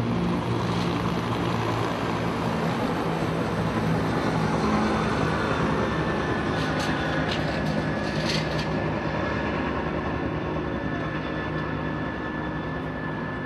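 Steady low drone of a motor vehicle's engine running at idle, joined about halfway in by a thin steady high tone and a few faint clicks.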